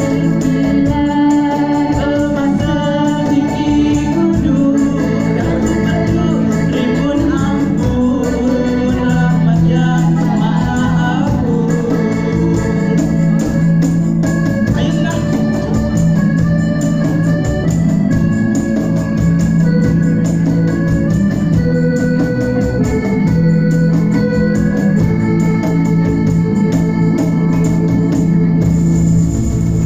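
Live band music with an electronic keyboard playing an organ sound, holding chords over a sustained low note, with singing over it.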